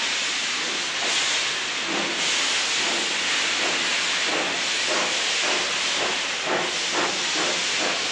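Steam locomotive No. 90 pulling away from the platform: a loud steady hiss of steam, with exhaust chuffs starting about halfway through and coming quicker toward the end.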